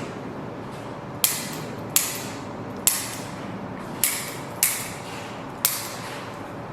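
Six sharp mechanical clacks from chiropractic adjusting equipment, spaced about a second apart, each followed by a short hiss that fades quickly.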